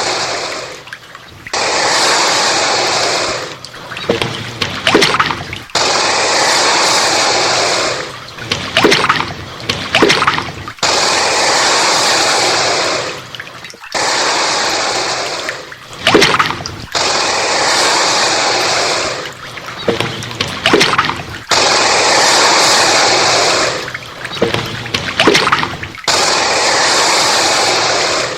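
American alligator hissing: a series of long, steady hisses of about two seconds each. Between them come choppier stretches with sharp splashy crackles.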